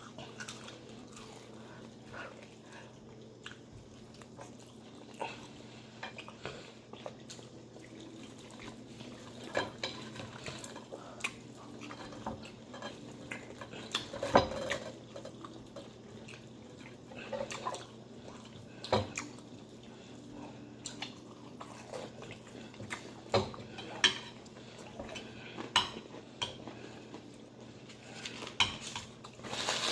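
Cutlery clinking and scraping on plates as people eat, in scattered sharp clicks every few seconds, the loudest about halfway through.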